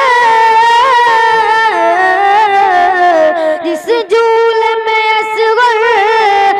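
A boy's high voice singing a manqabat unaccompanied into a microphone: long held notes with wavering ornaments, the melody dipping lower in the middle and climbing again, with a short breath about four seconds in.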